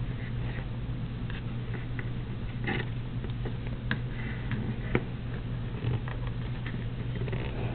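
Light rustling and scattered small clicks of fingers tying knots in embroidery floss, over a steady low hum.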